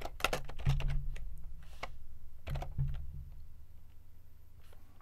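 Typing on a computer keyboard: irregular keystroke clicks in a few short clusters, thinning out to a lull in the last couple of seconds.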